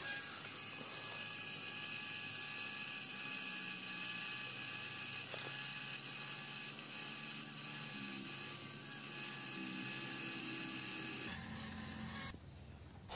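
MN99S RC Land Rover Defender crawler's small electric motor and gearbox whining steadily as it crawls through mud. The pitch steps up and down a few times past the middle as the throttle changes.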